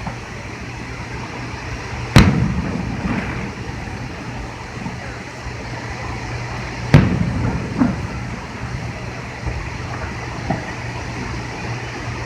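Fireworks going off: two sharp bangs about five seconds apart, each followed by a rolling echo, with a few smaller pops and crackles between them.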